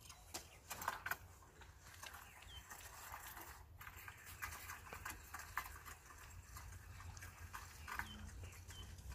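Faint, irregular clicks and rustles of an angler handling fishing rods and reel on a grassy bank, with his padded jacket rustling as he moves.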